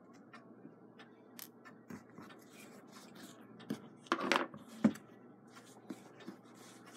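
Quiet handling noises of small clock parts being worked by hand over a terry towel: scattered faint clicks and light rubbing, with a brief louder scuffle a little after four seconds in.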